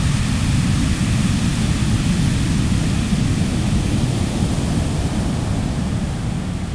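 Heavy storm surf from a distant hurricane's swell, breaking continuously in a steady roar with a strong, churning low rumble.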